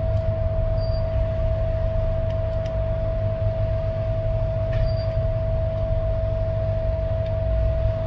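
Steady machine hum, a constant mid-pitched tone over a low rumble, with a few faint short high blips about four seconds apart.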